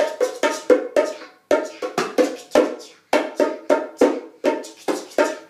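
Bongos struck by hand in a quick, even rhythm of about five beats a second. The run breaks off briefly twice.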